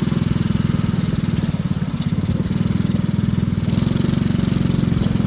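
Motorcycle engine running at steady revs, a fast even train of exhaust pulses.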